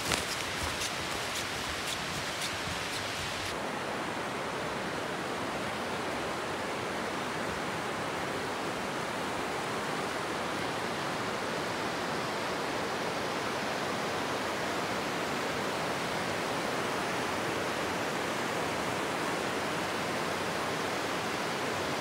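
Steady rushing of a shallow, rocky river running over stones. A few faint crunching footsteps in snow in the first few seconds.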